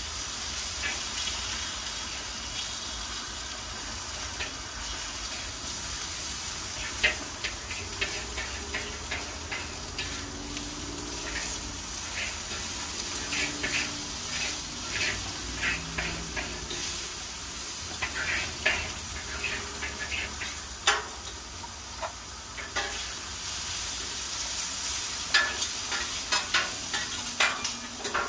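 Ribeye steak sizzling on a hot Blackstone flat-top griddle, with many sharp clicks of a knife striking the steel surface as the steak is cut into pieces.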